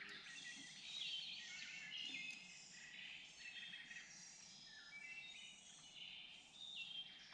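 Faint chorus of several songbirds singing at once, overlapping high chirps and trills.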